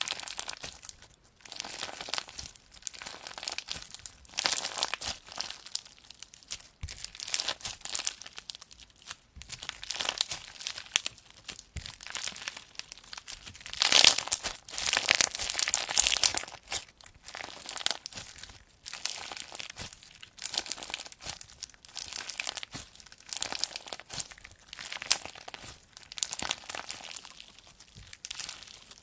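Slime being squeezed and stretched by hand, in repeated noisy squishes every second or two, the loudest a little past the middle.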